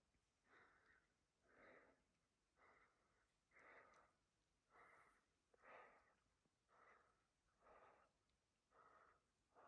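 Faint, heavy human breathing, one breath sound about every second, in an even rhythm: a climber out of breath from exertion at high altitude.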